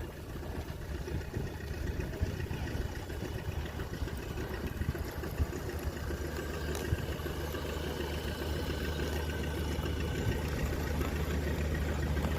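Mini bulldozer's engine running steadily with a low hum, growing gradually louder over the last several seconds, with a couple of faint knocks midway.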